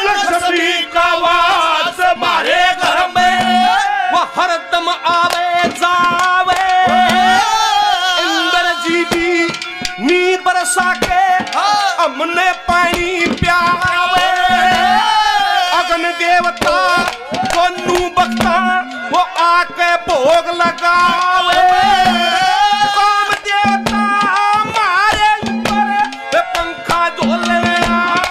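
Haryanvi ragni folk music: a dholak hand drum keeps a steady rhythm under a harmonium melody, with a wavering, vibrato-laden melodic line over the top.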